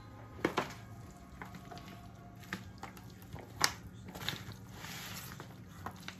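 A utensil stirring potato salad in a disposable aluminium foil pan: soft squishing with scattered, irregular light clicks and taps against the foil.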